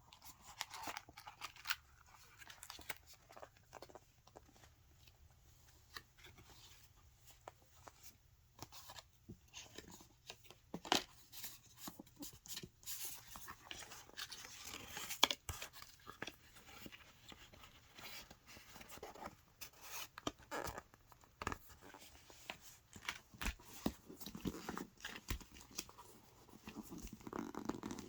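Paper being handled: pages and paper inserts of a hardbound portfolio rustling and crinkling as they are pulled out, unfolded and turned, with scattered light taps and a couple of sharper snaps near the middle.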